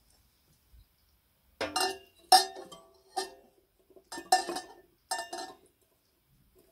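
Glass lamp chimney clinking against the brass burner of a kerosene ship's lamp as it is set in place, a series of sharp ringing clinks in small clusters starting about a second and a half in.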